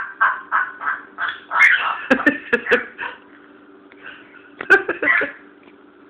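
Timneh African grey parrot chattering: a quick run of short, varied squawks and mumbled syllables with a few sharp clicks over the first three seconds, then another short burst about five seconds in.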